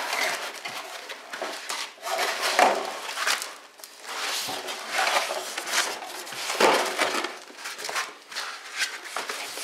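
Foam packing blocks rubbing and scraping against each other and the cardboard box as they are pulled away. The rustling comes in irregular bouts, loudest about a quarter, a half and two-thirds of the way through.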